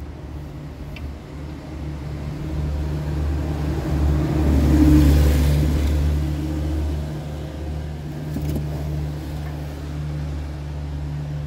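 Motor vehicle engine running with a steady low hum, swelling louder about halfway through and then easing back.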